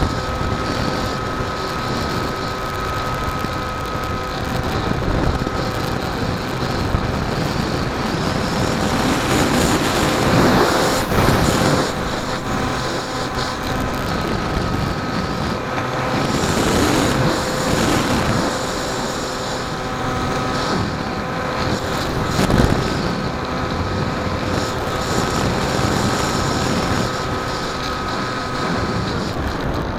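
RC foamboard flying wing's motor and propeller running with a steady whine, heard from a camera on the wing, with wind rushing over the microphone in swells.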